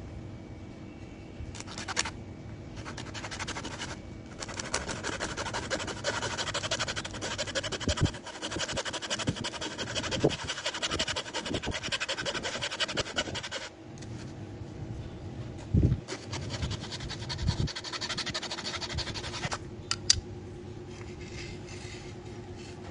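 Small hacksaw cutting through a bamboo stick with rapid back-and-forth strokes. The sawing starts about two seconds in and runs for about ten seconds, stops briefly, then carries on for about five seconds more, with a few dull knocks along the way.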